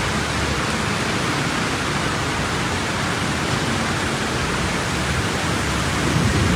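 Steady hiss of heavy rain falling. Near the end a low rumble of thunder starts to rise.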